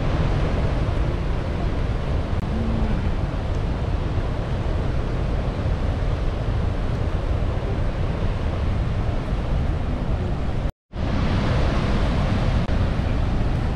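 Steady rushing noise, strongest in the low end, with wind buffeting the microphone; it breaks off for a moment about eleven seconds in and resumes.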